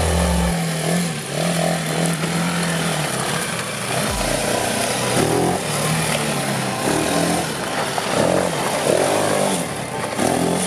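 Small quad bike (ATV) engine running as it is ridden, the engine note rising and falling with the throttle.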